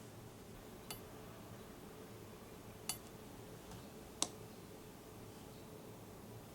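Three light clinks of kitchen utensils against dishes: one about a second in, one near three seconds, and the loudest just past four seconds.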